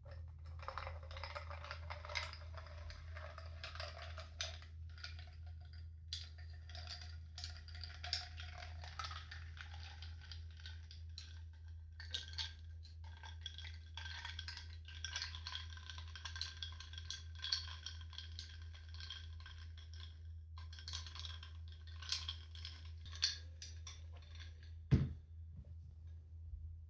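Computer keyboard typing in quick runs of clicks with short pauses between them, over a steady low hum. A single louder knock comes near the end.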